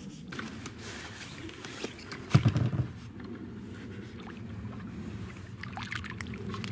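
Handling noises in an inflatable fishing boat while a small crucian carp is hooked: scattered knocks and clicks over a steady low rumble, with one loud thump about two and a half seconds in.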